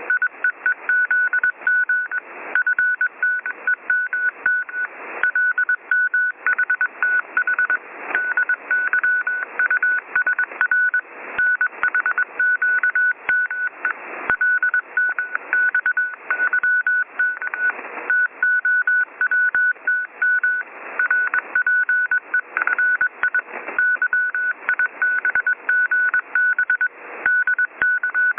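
Electronic telephone-line tones: a choppy, repeating beep at one pitch over a harsh hiss, heard through a phone line.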